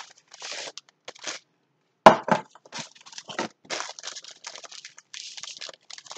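Plastic packaging rustling and crinkling as it is handled. There is a sharp knock about two seconds in.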